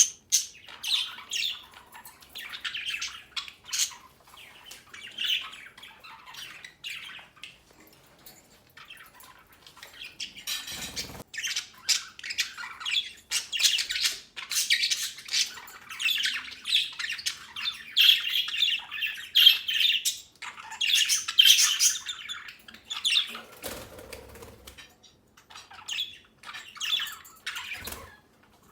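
A group of budgerigars chattering, chirping and warbling, with sharp calls overlapping. A short rustle about a third of the way in, and a soft low bump later on.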